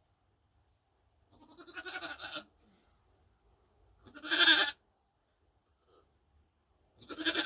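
Nigerian Dwarf goat bleating three times a couple of seconds apart, the first call softer than the other two and the third starting just before the end.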